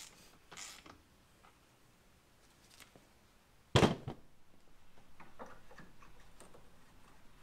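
Socket and ratchet turning a motorcycle fork cap down into the fork tube: two short scraping clicks in the first second, then a single sharp knock near the middle and faint ticks after.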